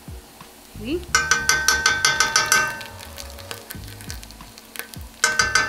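A metal spoon scraping tomato paste out of a small tin can, in rapid strokes of several a second. It comes in two runs of about a second and a half, one about a second in and one near the end.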